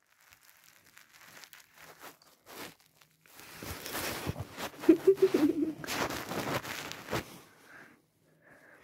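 Crunching and crinkling of a plastic suction-cup stick toy as a cat bites and handles it, scattered at first and densest from about three to seven seconds in. A short voice sound about five seconds in is the loudest moment.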